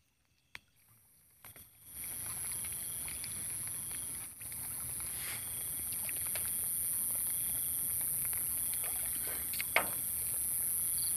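Almost silent for about two seconds, then wading and sloshing in shallow weedy water, with a few short splashes over a steady high-pitched hiss.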